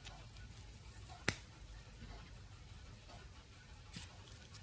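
A single sharp snip of small side cutters biting through thin sheet metal from inside a nixie tube, about a second in, with a fainter click near the end.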